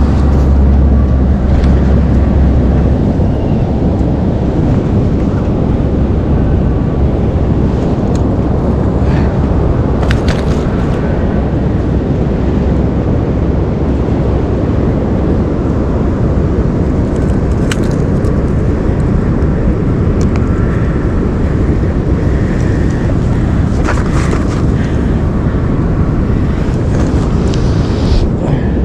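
Steady, loud rumble of wind buffeting the microphone mixed with sea surf, heaviest in the first couple of seconds, with a few faint clicks of handling scattered through.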